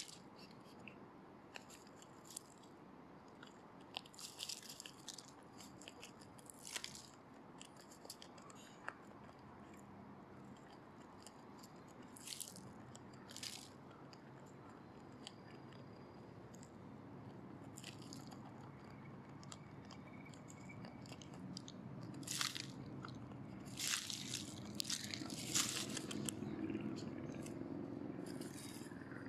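Dry leaf litter and loose soil rustling and crackling in short, irregular bursts as a lesser Japanese mole digs and pushes into the ground. A low steady noise grows louder through the second half.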